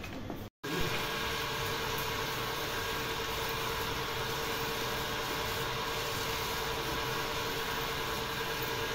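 Water spraying from a garden hose onto a buffalo's hind legs and the wet concrete floor: a steady hiss with a steady hum underneath, after a brief dropout about half a second in.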